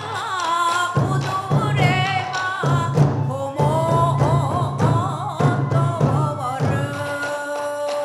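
Japanese folk festival music: taiko drums struck in pulses of beats under a wavering, ornamented high melody line, which settles into one long held note near the end.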